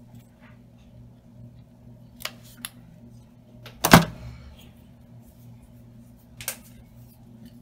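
Light clicks of craft tools and a plastic glue bottle being handled on a cutting mat, with one sharp knock just before the middle, over a low steady hum.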